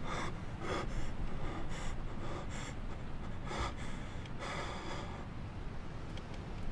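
A wounded man gasping and breathing hard in pain, about six ragged breaths roughly a second apart, over a steady low rumble.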